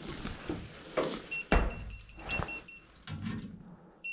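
Non-contact electrical tester pen beeping rapidly, about six high beeps a second, as it picks up voltage on the distribution box and its earth line, a sign that the earth is live. The beeping stops near the end, with rustling handling noise and a low thump about a second and a half in.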